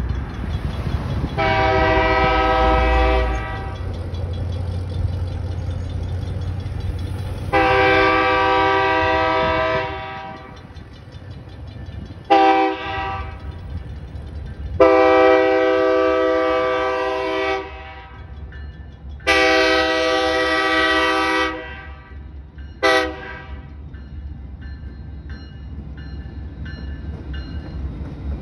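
BNSF diesel locomotive's multi-chime air horn sounding the grade-crossing signal: two long blasts, a short one and a long one, then another long blast and a short toot, over the low rumble of the locomotive. Train noise builds near the end as the locomotive reaches the crossing.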